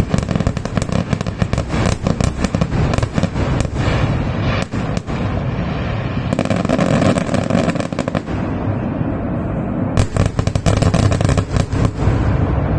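Fireworks finale: a dense barrage of rapid bangs and crackling that thins to a rumble in the middle, then surges into another quick volley of sharp cracks about ten seconds in.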